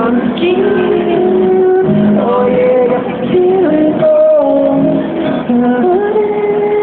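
Street music: a melody of long held notes that glide between pitches, likely a singing voice, over a lower sustained accompaniment.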